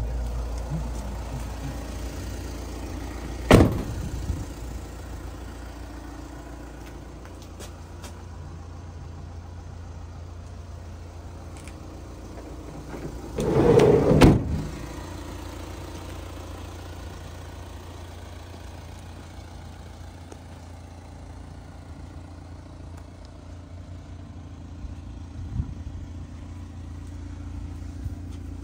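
The VW Transporter's side sliding door being hauled open, a loud rolling clunk lasting about a second, midway through. There is a sharp knock a few seconds earlier and a small click near the end, all over a steady low hum.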